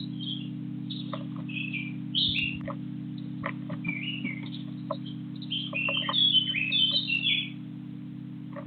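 Small garden birds chirping in short, quick notes, busiest in a flurry near the end, over a steady low hum.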